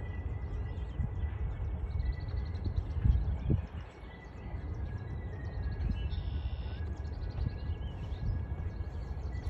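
Wind buffeting the microphone, steady apart from a stronger gust about three seconds in, with small birds chirping in the background.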